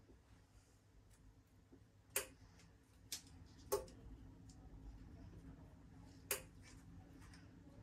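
Four sharp, irregular clicks and taps of small repair tools handling a phone's parts during a screen replacement, over a faint low hum.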